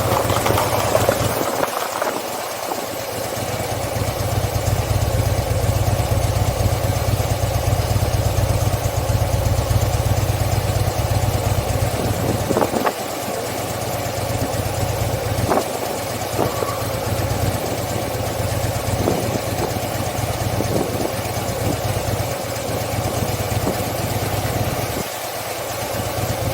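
Harley-Davidson Fat Bob's V-twin engine idling steadily, with a few short clicks or knocks scattered through the middle.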